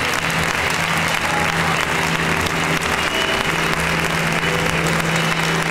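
Theatre audience applauding steadily, with music playing underneath.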